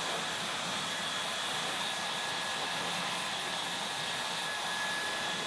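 Handheld hair dryer blowing steadily on damp short hair, a constant rush of air with a thin high motor whine.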